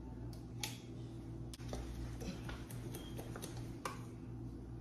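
A few scattered faint clicks and taps as the seal is taken off a new plastic squeeze bottle of yellow mustard and its cap is handled, over a low steady hum.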